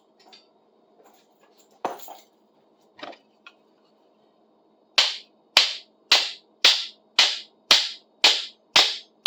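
A few light knocks, then from about halfway a run of about nine sharp metal taps, evenly spaced at a bit under two a second, each with a short ring, as a stuck screw on a rusty folding pruning saw is worked loose. A faint steady hum lies underneath.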